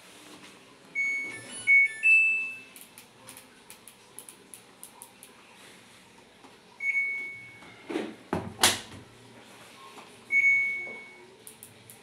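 Samsung Eco Bubble washer-dryer control panel beeping: a short chime of several tones about a second in, then single beeps at about seven and ten seconds as buttons are pressed. Two sharp knocks come between the later beeps.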